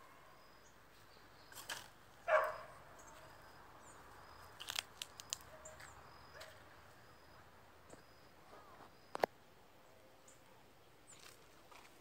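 A dog barks once about two seconds in, the loudest sound here. A few sharp cracks of dry twigs and brush snapping underfoot come around the middle and once more later on.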